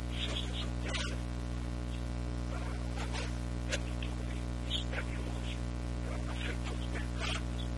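Steady electrical mains hum, with a faint crackle here and there.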